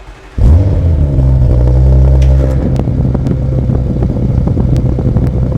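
Audi performance car engine starting: a brief crank, then it fires with a loud flare about half a second in and settles into a steady idle.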